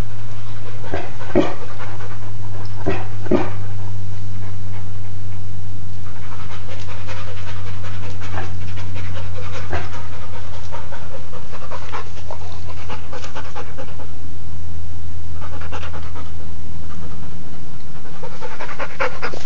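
A harlequin Great Dane panting, with stretches of rapid open-mouthed breaths and a few short sharp huffs in the first few seconds. A steady low hum sits under it throughout.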